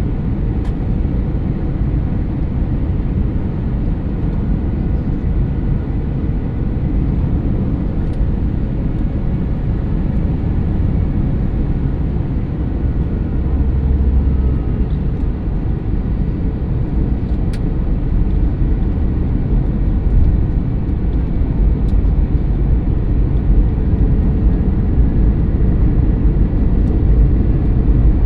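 Airbus A321neo LR airliner heard from the cabin: a steady low rumble of engines and airflow with no change in level, and a couple of faint clicks.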